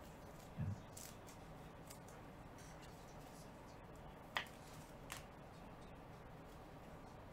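Trading cards handled on a tabletop by a gloved hand: a soft thump about half a second in, then two sharp clicks a little under a second apart near the middle.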